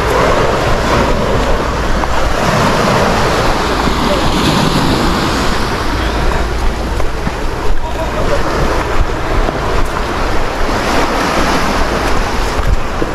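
Sea surf washing against a rocky shore, with wind buffeting the microphone in a steady, uneven low rumble.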